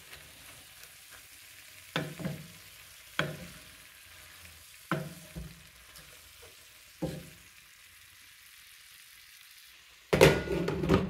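Purslane sizzling in a skillet while a wooden spoon stirs it, with a few sharp knocks of the spoon against the pan a second or two apart. Near the end, a louder clatter as a glass lid is set on the pan.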